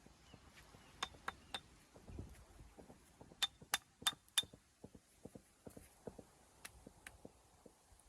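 Stones being handled and set in a wall: scattered dull knocks of stone on stone, with sharp ringing clinks, a pair about a second in and a quick run of four a little past the middle.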